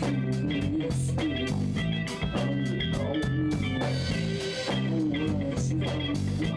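A rock band playing together: electric guitars over held bass-guitar notes and a steady drum-kit beat with cymbals.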